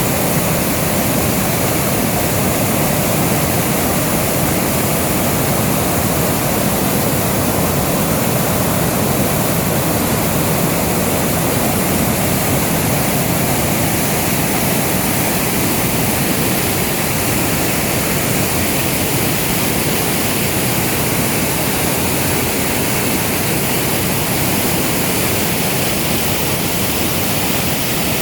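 Piracicaba River water rushing, a loud, steady roar of churning water.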